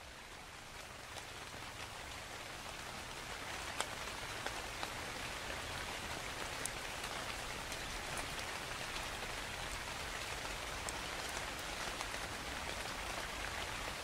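Steady rain falling into a puddle: an even hiss of patter with scattered sharper drop splashes, fading in over the first few seconds.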